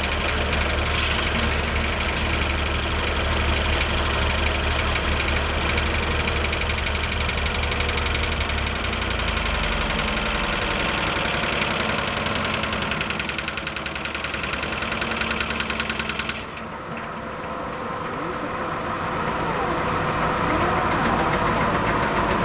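Portable sawmill's engine running steadily under load with the high hiss of the saw cutting timber; the high noise cuts off suddenly about 16 seconds in while the engine runs on.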